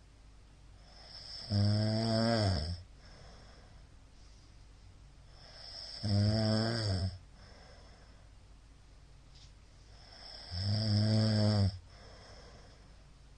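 A middle-aged man snoring loudly while asleep: three snores about four and a half seconds apart, each about a second long and building up briefly before it, with quieter breathing between them.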